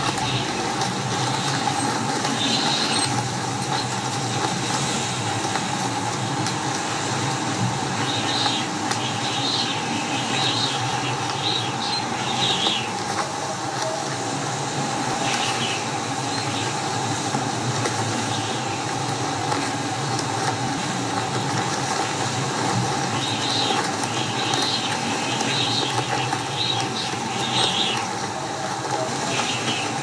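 Steady storm wind noise, with short higher rushes coming and going every few seconds.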